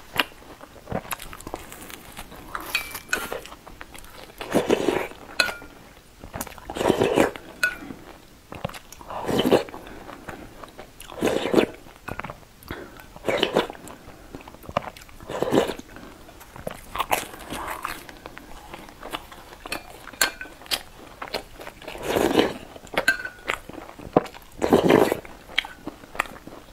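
Close-miked eating sounds: a person biting and chewing soft tofu in chili sauce and fried flatbread, with a loud wet chewing burst about every two seconds and small clicks in between.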